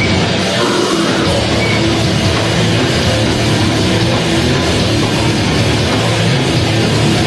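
Grindcore band playing live: distorted electric guitars and a drum kit in a loud, dense, unbroken wall of sound.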